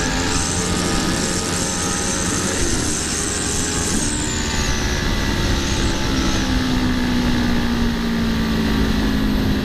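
Kawasaki Ninja 650 parallel-twin engine pulling hard at speed in third gear, under a heavy rush of wind noise; about six seconds in its note settles into a steadier low hum.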